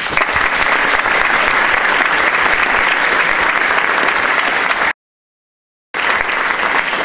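Audience applauding in a large hall, many hands clapping at once. About five seconds in, the sound drops out completely for about a second, then the applause carries on.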